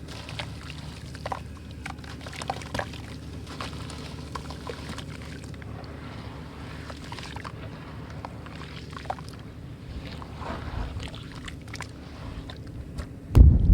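Brick pieces crumbling in water: scattered small crackles and fizzing clicks over a steady low rumble, with a loud low thump near the end.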